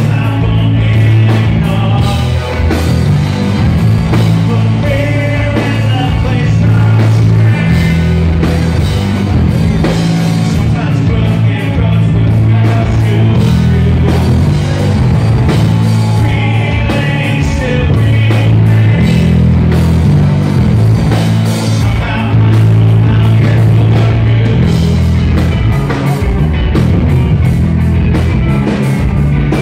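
Live rock band playing loud, with electric guitars, a heavy bass line and drums, and a man singing lead vocals.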